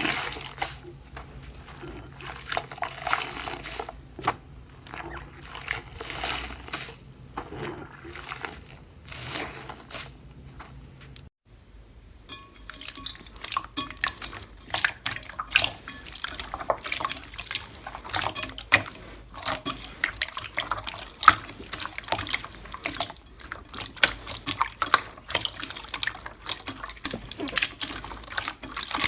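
Slime being squeezed, pressed and poked by hand, making dense, irregular wet clicks and squelches. The sound breaks off briefly about eleven seconds in, then carries on with a different, crisper crackle.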